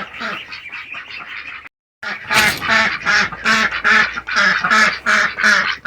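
Domestic ducks quacking, fainter at first, then a short break about two seconds in followed by a loud, steady run of quacks, about three or four a second.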